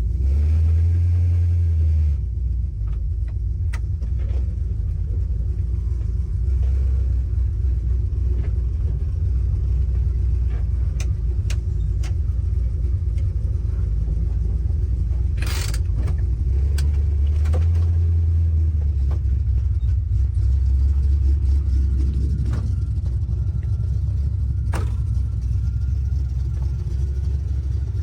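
A 1967 Pontiac Firebird's 400 cubic-inch big-block V8 rumbling steadily while driving. It swells louder briefly at the start and again for a few seconds past the middle, and a couple of sharp clicks cut through.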